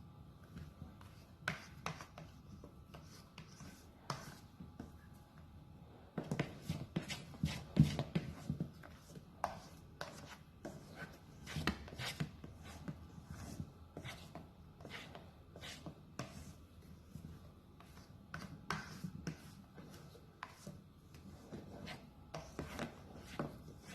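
Irregular light knocks, taps and scrapes of kitchen utensils and bakeware being handled, busiest in the middle stretch.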